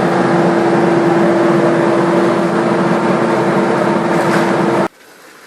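Dust-extraction fan fixed into the chimney base running steadily, a loud rushing noise with a steady hum. It cuts off suddenly near the end.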